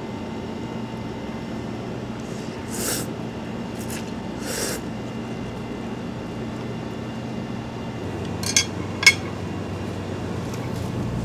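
Quiet table sounds over a steady low room hum: two short hissing sounds early on, then two sharp clinks of utensils against a dish about half a second apart, near the end.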